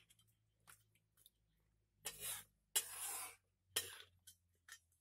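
Ladle stirring and scraping in a pan of chicken in thick gravy: a few short scraping swishes about two to four seconds in, the longest a bit under a second, with scattered small clicks between them.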